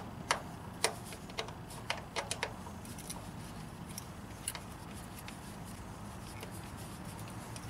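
Irregular sharp clicks and ticks of a hand tool working on fasteners and parts in a truck's engine bay, several in quick succession during the first couple of seconds, then fewer and fainter.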